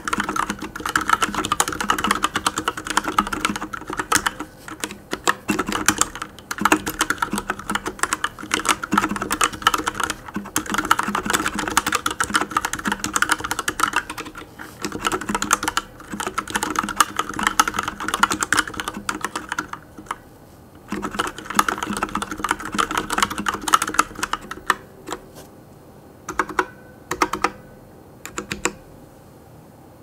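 Typing on a Ducky x Varmilo Miya Pro Sakura mechanical keyboard with Cherry MX Silver linear switches, stock Sakura keycaps and silencing o-rings: keys clacking in a fast, steady stream. The typing stops briefly about two-thirds of the way through, resumes, then thins to a few scattered keystrokes and ends near the end.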